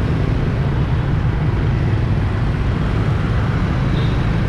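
Steady low rumble of a vehicle moving through city street traffic.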